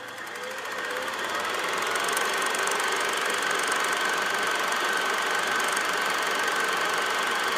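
Vintage film projector running: a fast, steady mechanical clatter with a whirr, building up over the first two seconds and then holding steady.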